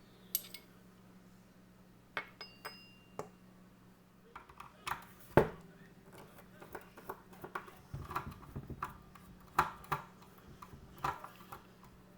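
Small metal parts and tools being handled: irregular light clicks, clinks and taps, with one louder knock about five seconds in.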